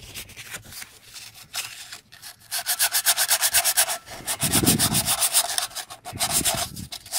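Hand-held sandpaper scrubbing paint off the gasket face around an exhaust port on a Yanmar 3HM45F heat exchanger. It starts with a few light scrapes, then about two and a half seconds in turns to fast back-and-forth strokes, around seven or eight a second.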